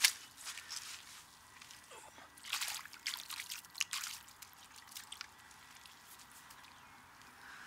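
A sharp footstep on wet leaf litter, then hands scooping and splashing water in a shallow muddy puddle, with water dripping and trickling, most of it about two and a half to four seconds in.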